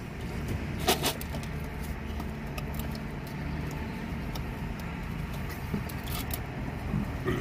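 Steady low rumble of an idling car heard inside the cabin, with scattered light clicks and rustles of paper food bags; a sharper rustle about a second in.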